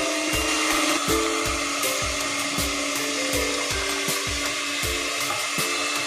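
Electric hand mixer running steadily, its beaters whirring through a creamy batter in a plastic bowl, under background music with a steady beat.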